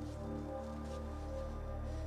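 Quiet background music of sustained, held notes.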